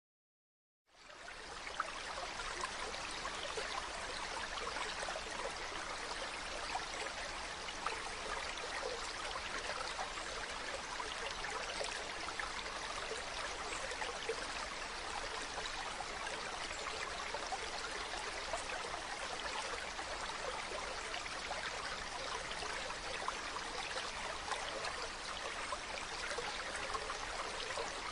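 A mountain river running over rocks: a steady rushing of water, flecked with small splashes. It starts under a second in.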